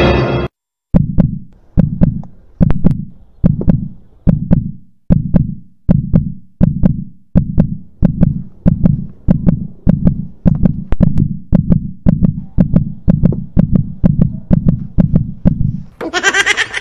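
Heartbeat sound effect: a low thudding pulse repeating about twice a second and quickening, used to build suspense. Near the end it gives way to a brighter, higher sound.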